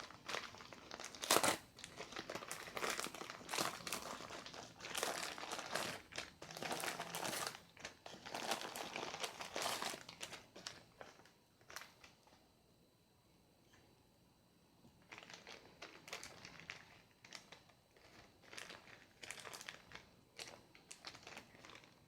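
Packaging crinkling and rustling in irregular bursts as it is handled and opened, with a few sharp clicks; it eases off about halfway through, then picks up again in shorter bursts.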